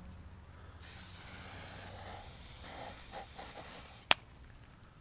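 Aerosol hairspray can spraying in one continuous hiss for about three seconds, starting about a second in and cutting off suddenly, followed at once by a single sharp click.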